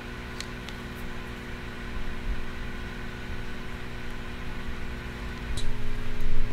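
Steady room hum with a few faint light clicks as small plastic beads are handled and strung onto a sampler's wire cable, with louder handling noise near the end.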